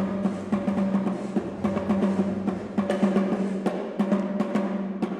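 Music with busy, rapid drumming over a steady low held note.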